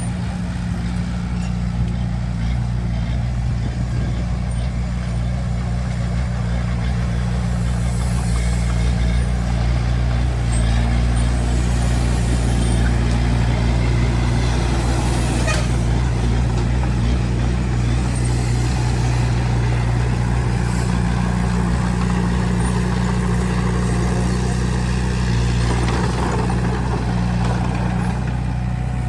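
Bulldozer's heavy diesel engine running steadily at a constant, even pitch.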